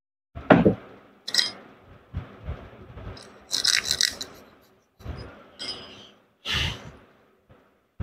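Metal parts of a DeWalt DW801 angle grinder clinking and scraping as its gear head is handled and fitted by hand: a series of short knocks and rattles, busiest about three and a half to four seconds in.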